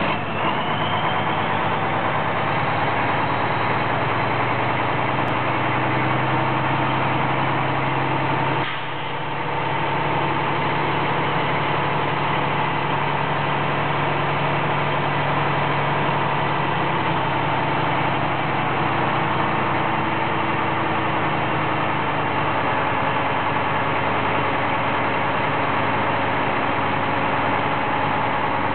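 A 1995 Mack RD690S dump truck's diesel engine runs steadily while it drives the hoist that raises the dump body. A high whine over the engine rises in the first couple of seconds and then holds. The sound dips briefly about nine seconds in.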